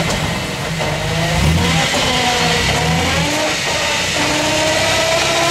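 Jeep Wrangler engine brought up to about 1250 rpm in drive, turning the raised rear wheels through the Dana 35 rear axle. A whine climbs slowly in pitch as the driveline gathers speed.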